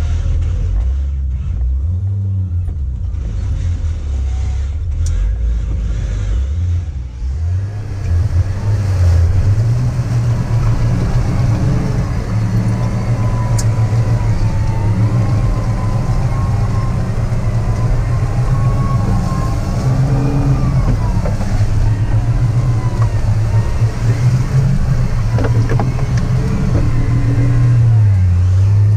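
Turbocharged TB42 4.2-litre straight-six petrol engine of a Nissan GQ Patrol comp truck, heard from inside the cab. It runs at low revs, then revs up hard about seven seconds in and is held at high revs as the truck drives on, with a wavering high whine over the middle stretch.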